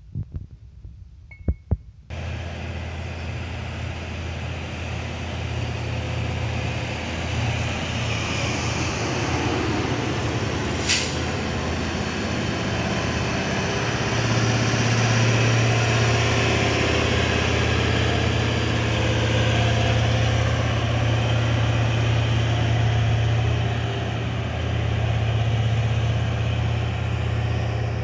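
A few sharp knocks, then about two seconds in the steady running of a large heavy-equipment diesel engine takes over: a deep, continuous drone that grows louder about halfway through, with a single sharp click a little before that.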